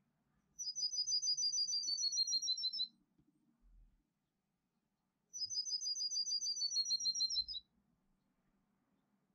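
Songbird song of the 'canto metálico' type, played in the background as a tutor song for caged birds: two near-identical phrases, each a fast run of high, sharp notes lasting about two seconds and dropping slightly at the end.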